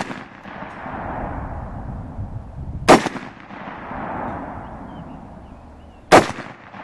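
.223 AR-15 rifle fired twice, about three seconds apart, each shot followed by a long rolling echo. There is no explosion: the shots do not set off the exploding target, which the shooter guesses he mixed wrong.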